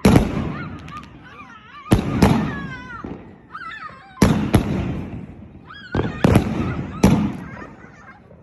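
A 158-shot firework cake of 1.2-inch and 2-inch shells firing. About eight sharp bangs come, several in pairs about a third of a second apart, and each fades out over a second or so.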